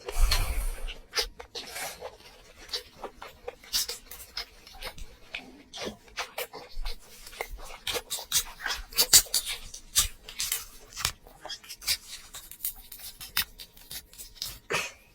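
A person eating and chewing, with irregular wet smacks and clicks of the mouth, several a second.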